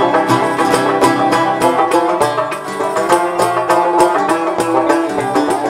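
Oud playing a quick run of plucked notes in an instrumental break of a Moroccan malhun song.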